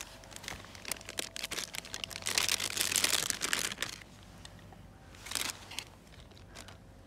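Plastic food packaging crinkling as it is handled and opened, loudest for a second or two in the middle. Near the end come a few light clicks of a knife slicing on a wooden chopping board.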